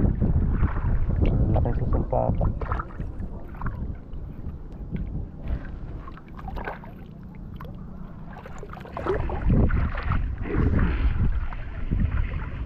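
River water splashing and sloshing around someone wading in a fast current, over a low rumble. It quietens for a few seconds midway, then grows louder again about nine seconds in.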